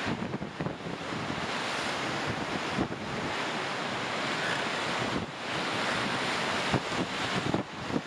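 Colorado River whitewater rapid rushing and splashing around an inflatable raft as it runs through, a steady loud rush with brief dips about three and five seconds in. Wind buffets the microphone.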